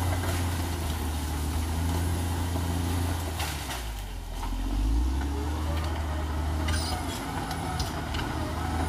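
Caterpillar D6R XL bulldozer's diesel engine running steadily. It dips about four seconds in, then rises in pitch again as it is revved back up. There are a few sharp clanks, one just before the dip and several about seven seconds in.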